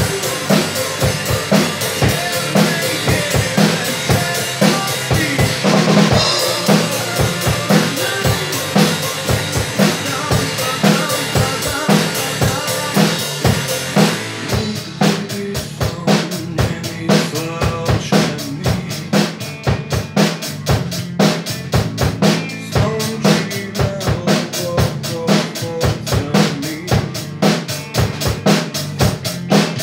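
Drum kit played along to a recorded pop-rock song: a steady beat of bass drum and snare with Meinl cymbals over the backing track. About halfway through, the constant cymbal wash drops away and the separate hits stand out more.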